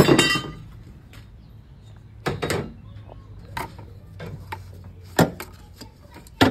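A handful of sharp knocks and clicks a second or so apart over a low steady hum. The first, at the very start, is the loudest and rings briefly.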